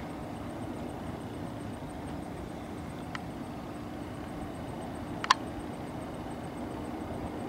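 Distant aerobatic propeller plane, a steady low engine drone heard from far off. A sharp click about five seconds in, with a fainter one a couple of seconds earlier.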